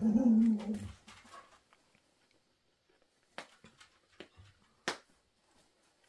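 A dog gives a short low whine of about a second at the start. Two sharp clicks follow a few seconds later, about a second and a half apart, with a few faint ticks between them.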